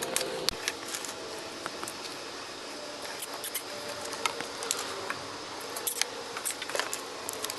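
Scattered light clicks and short zipping sounds of nylon zip ties being pulled tight and snipped, over a faint steady hum.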